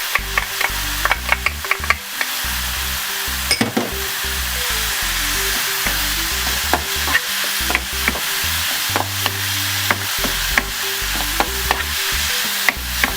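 Tomato, garlic and surimi sauce sizzling in a frying pan as it is stirred, with frequent light clicks of the spoon against the pan.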